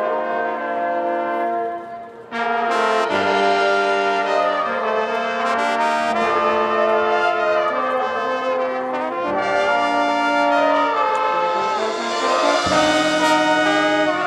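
Marching band brass section playing sustained chords. The music breaks off briefly about two seconds in, comes back in with a few sharp percussion hits, and swells toward the end.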